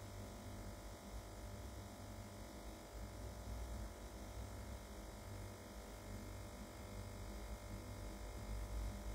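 Faint steady low rumble with a light hum, no distinct events: quiet background ambience.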